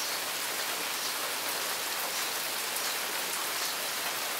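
Heavy rain falling steadily in a downpour, a constant hiss with occasional single drops ticking close by.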